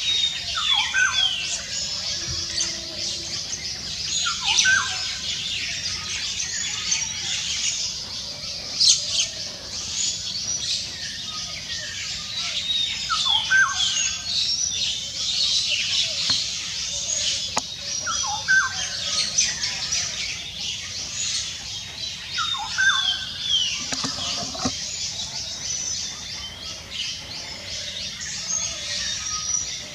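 A dense morning bird chorus in jungle: many birds chirping and calling at once, with a short call that falls in pitch recurring every few seconds.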